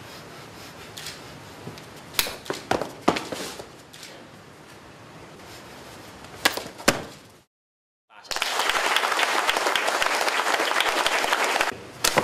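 Sharp slaps and thuds of hand strikes landing on a body and clothing, a quick cluster about two seconds in and two more near seven seconds. After a half-second dropout, a few seconds of applause, then another slap at the end.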